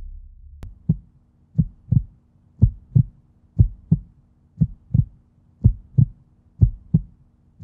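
Heartbeat sound effect: a low double thump repeating about once a second over a faint steady hum, starting just after a sharp click.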